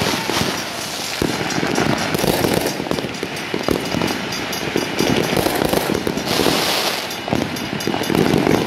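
Many fireworks going off at once in a continuous barrage of bangs and crackling, with a brief hiss a little past six seconds in.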